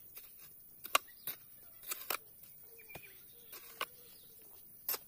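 A hand hoe chopping and scraping into stony, gravelly soil: several sharp strikes at irregular intervals.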